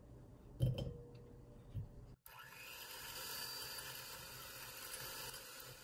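Cold butter dropped into a glass bowl with two thuds, the first with a brief ring. Then an electric hand mixer runs steadily, its beaters whisking the cold butter.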